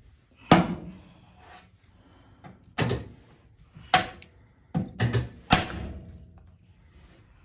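A series of about six heavy knocks and clanks, irregularly spaced, some with a short metallic ring, typical of metal tools and parts being handled and set down while setting up for body work.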